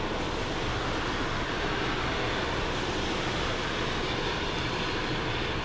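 Steady airport background noise on a rainy day: an even rumbling hiss with no distinct events, which holds at one level throughout.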